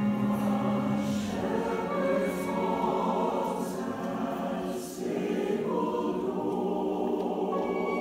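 Mixed choir singing Christmas music in sustained chords, with a violin playing along; the sung 's' sounds come through as short hisses several times, and there is a brief break for breath about five seconds in.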